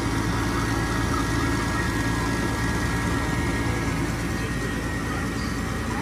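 Gas furnace draft inducer motor running with a steady hum and a faint, steady high-pitched whine.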